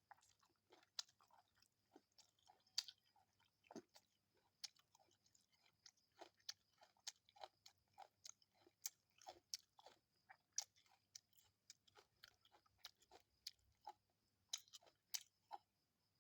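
A person chewing food close to the microphone, with frequent short, irregular mouth smacks and clicks.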